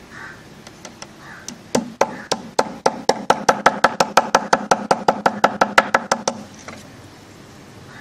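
A hammer tapping a thin metal strip to bend it into shape, a rapid run of sharp metallic blows at about five a second lasting some four and a half seconds. The blows re-bend a strip of a beehive entrance gate that had been bent the wrong way.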